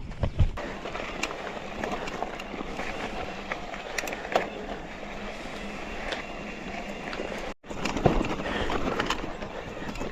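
Mountain bike riding down a dirt forest trail: tyres rolling over dirt and stones with a steady rumble and frequent clicks and rattles from the bike. The sound drops out for an instant about three-quarters of the way through.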